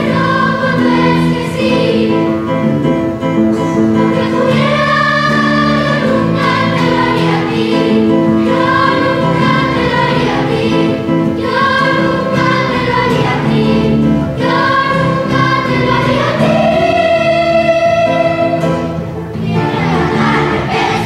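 Children's choir singing a song with guitar accompaniment, in phrases of held notes, with one long held note near the end.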